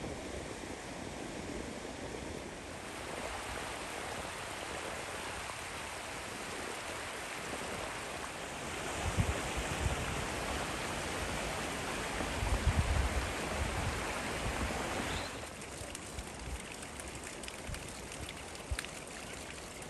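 Steady rush of running stream water, louder in the middle and dropping suddenly about fifteen seconds in, with a few low rumbles.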